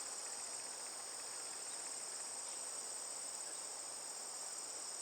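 A chorus of crickets trilling steadily and high-pitched, with no break.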